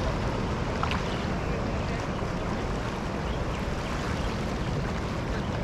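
Steady rushing of sea waves and wind buffeting the microphone, with a faint click about a second in.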